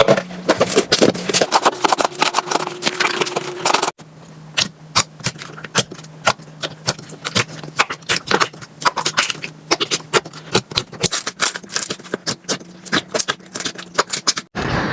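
Slime squished and pressed by hand, making a dense run of small sticky clicks and pops. The sound cuts abruptly to a quieter clip of the same popping about four seconds in.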